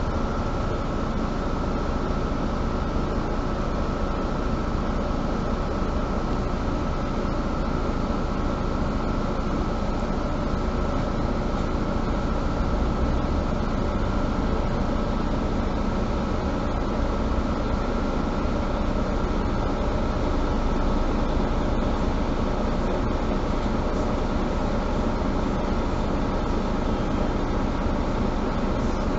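Steady engine and running noise of a Mercedes-Benz Citaro G (C2) Euro 5 articulated diesel bus, heard from inside the cabin: an even drone with a constant high tone and no change in pace.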